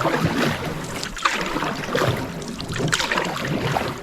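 Canoe paddle strokes in the water, a swish and splash about once a second.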